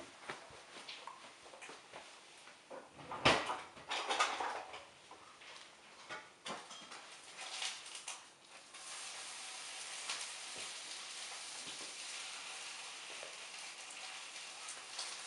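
A dog nosing about a rug, with scattered small clicks, taps and rustles and one sharp click about three seconds in. A steady hiss sets in about nine seconds in and runs under the rest.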